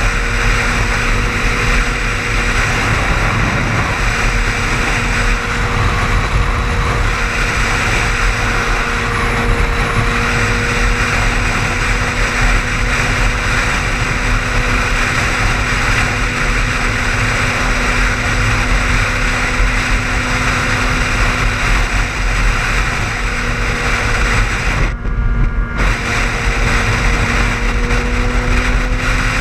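Car driving at highway speed: steady road and tyre noise with a constant engine hum that rises slightly near the end. The hiss briefly drops out for about a second near the end.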